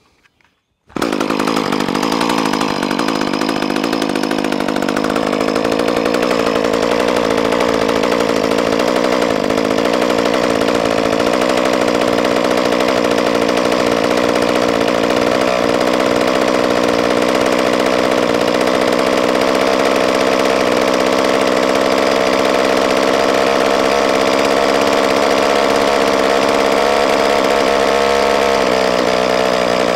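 Echo CS-2511T top-handle chainsaw's small two-stroke engine running at a steady idle, loud and even. It comes in abruptly about a second in after a moment of near silence, and its pitch shifts slightly near the end.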